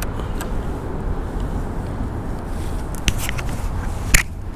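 A few sharp clicks and knocks as a large rainbow trout is hooked onto a handheld digital fish scale and lifted, the loudest just after four seconds, over a steady low rumble.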